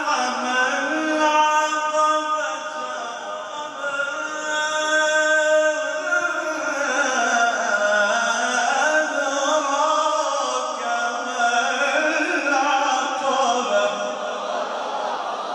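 A man reciting the Quran in a melodic, chanted style. He holds long notes that are ornamented with rises and falls in pitch.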